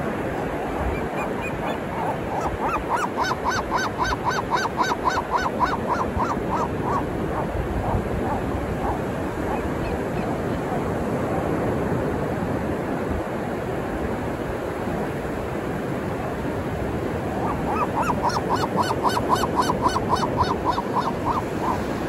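Seagull giving a long run of loud, rapidly repeated calls, about four a second. The run comes twice, a few seconds in and again near the end, over a steady wash of ocean surf.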